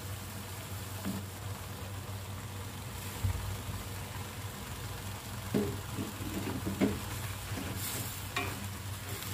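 Vegetable stir-fry simmering with a soft sizzle in a stainless steel wok, over a steady low hum. About three seconds in there is a dull thump as mustard greens are tipped in from a bowl. A wooden spatula then knocks and scrapes against the pan as the greens are stirred in, and the sizzle rises near the end.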